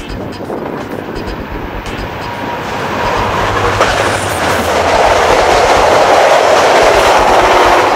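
An EMD F40PH-3 diesel locomotive hauling passenger coaches passes close by at speed, its engine and wheels-on-rail noise growing steadily louder and loudest as the coaches go by in the last few seconds.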